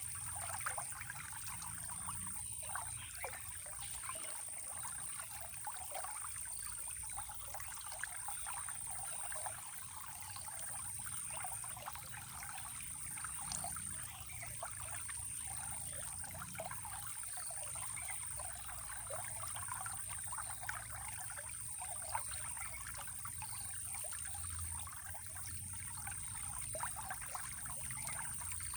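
Shallow running water trickling and splashing steadily, with a low rumble beneath it. A thin, steady high-pitched tone sits above it.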